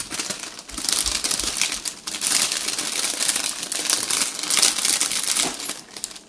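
Crinkling and rustling of plastic packaging as hair-bow clips are handled and unwrapped close by. A dense, crackly rustle from about a second in, dying down near the end.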